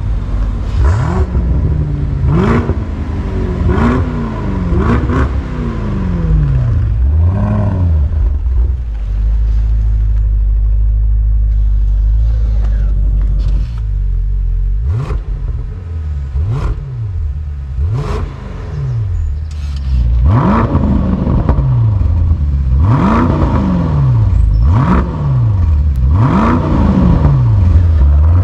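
Range Rover P530's 4.4-litre twin-turbo V8 revved in a series of short blips through a QuickSilver sports exhaust, settling back to a steady idle between them. A handful of revs come in the first several seconds, then a stretch of idle, then more revs coming closer together toward the end.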